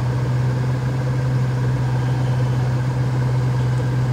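A 2003 Mustang Cobra SVT's supercharged 4.6-litre V8 idling, a steady low drone heard inside the cabin.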